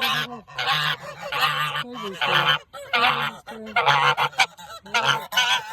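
Geese honking, a run of about eight short honks one after another with brief gaps between them.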